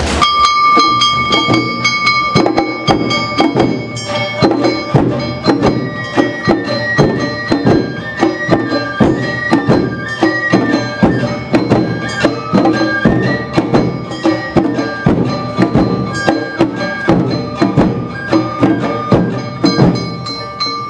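Awa Odori festival music starting up: a high bamboo flute holds a long note, then plays a melody over drum and percussion strikes about two a second.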